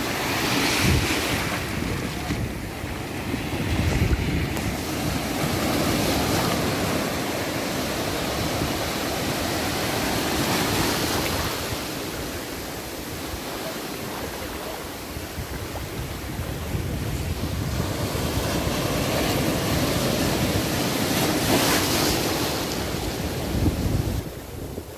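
Sea surf breaking and washing over the shallows of a beach, a steady rushing that swells and eases every few seconds.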